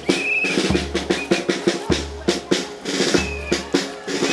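Marching band playing in a parade: rapid snare drum strokes and rolls over a bass drum beat about once a second, with held instrument notes and short warbling high notes above them.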